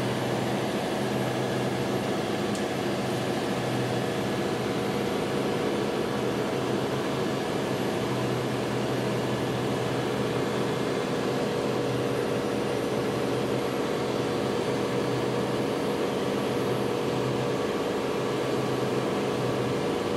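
Steady engine-room machinery drone: running diesel generators and ventilation, a constant hum with several steady tones and no change in level.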